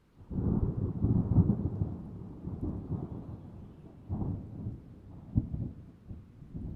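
Thunder: a rolling rumble that breaks in suddenly about a third of a second in. It is loudest and most crackling over the next second or so, then dies down, with fresh cracks about four seconds and about five and a half seconds in.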